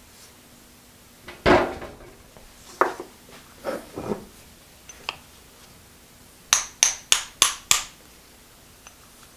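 Metal parts clunking and knocking, with one loud knock about a second and a half in, then five quick sharp hammer blows on steel near the end, each ringing briefly, as a seized pulley and idler are worked loose from a milling machine's power feed.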